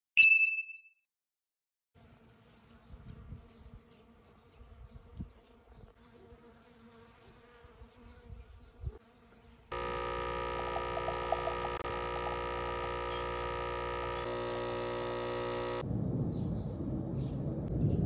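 A short bright chime rings at the start. After a few quiet seconds comes a steady insect buzz of unchanging pitch, which starts and stops abruptly after about six seconds. Outdoor background noise with a few short bird chirps follows.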